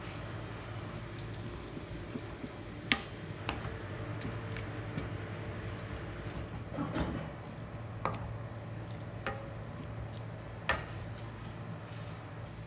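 A wooden spatula stirring and tossing noodles in simmering sauce in a nonstick frying pan, with a faint sizzle and several sharp knocks of the spatula against the pan, starting about three seconds in. A steady low hum runs underneath.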